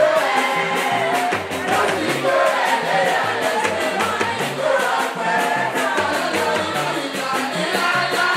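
Music with a singing voice over a steady percussion beat.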